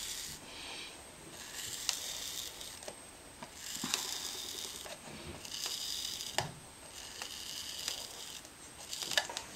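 Electric hot-wire Styrofoam cutter drawn through a thick Styrofoam block in a series of strokes, each a scratchy hiss lasting about a second, with a few sharp clicks in between.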